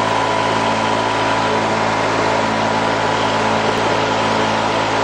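Massey Ferguson 35 tractor engine running at a steady speed, heard from the driver's seat as the tractor drives along a road.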